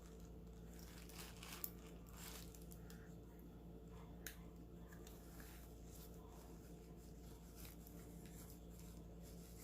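Near silence over a faint steady hum, with a few faint clicks and rustles of jewelry being handled, the sharpest about one and a half seconds in and again about four seconds in.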